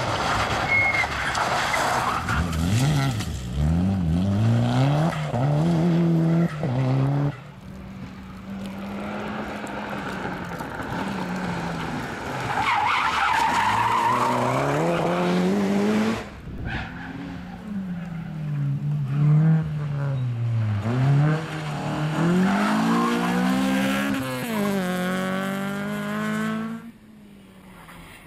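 Rally cars, Mitsubishi Lancer Evolutions among them, driven hard around a tight tarmac course: engine pitch climbs and drops again and again as they accelerate and lift for corners, with tyre squeal and skidding. The sound cuts off abruptly twice, about seven and sixteen seconds in, as one car's run gives way to another's.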